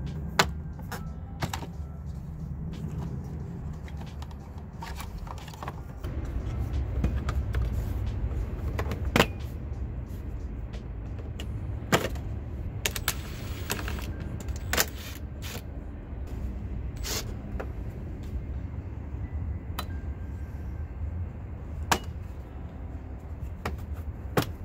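Plastic dashboard trim clips snapping loose and a pry tool knocking against hard plastic as the trim panels come off the van's dash: about a dozen sharp clicks and snaps at uneven intervals. Quiet background music plays underneath.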